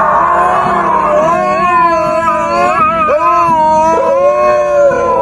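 An animal howling: a long, continuous howl whose pitch wavers and slides up and down.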